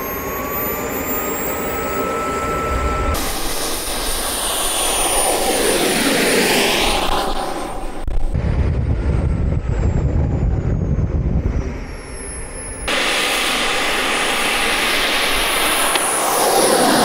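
Model turbine jet engine on an RC car, running with a loud high-pitched whine. Its pitch rises in the first few seconds, and twice the car rushes past, the sound swelling and sweeping in pitch as it goes by.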